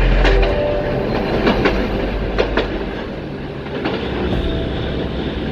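Street tram passing close by on street-running track: a heavy low rumble that drops away about half a second in, then its wheels clacking over rail joints in quick pairs of clicks, twice, over a steady rolling noise.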